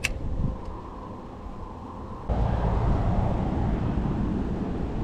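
Wind buffeting the microphone as a low rumble, with a sharp click at the start and a sudden louder stretch from a little over two seconds in.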